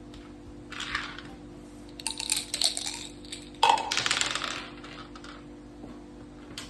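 Mak saka (Thai backgammon) dice and pieces clattering on the board in three bursts of rapid clicks. The loudest burst comes about three and a half seconds in and opens with a knock.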